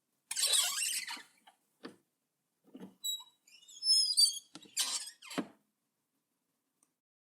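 A door being worked: a brief rattle, a few light clicks, a run of short high squeaks from the hinge about three to four seconds in, then another rattle about five seconds in.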